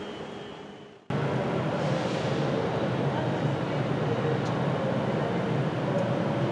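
Steady hum of a Virgin Class 390 Pendolino electric train standing at the platform, heard close beside its bodyside. It cuts in suddenly about a second in, after a short stretch of fading platform ambience.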